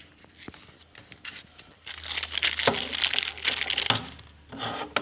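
A thin plastic bag crinkling and rustling as a new universal TV remote is taken out of its packaging. The crinkling is loudest from about two to four seconds in, with a shorter burst near the end.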